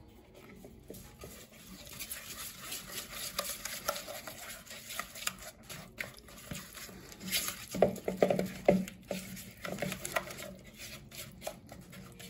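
A silicone spatula stirring and scraping a thick spice-paste marinade around a mixing bowl, in quick irregular strokes that are loudest about eight seconds in.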